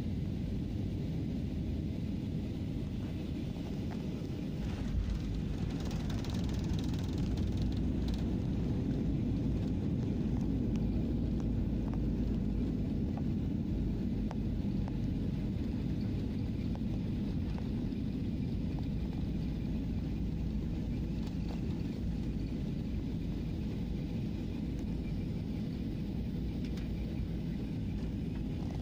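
Passenger jet cabin noise during the landing rollout: a steady rumble of engines and wheels on the runway. It swells about five seconds in, with added hiss for a few seconds, then settles back to a steady rumble.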